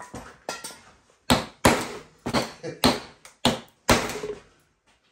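Ball-peen hammer striking a piece of leather on a wooden block, about eight sharp blows at uneven intervals of roughly half a second, each with a short ring, stopping about four and a half seconds in. The leather is being shaped into a kiltie for a logger boot.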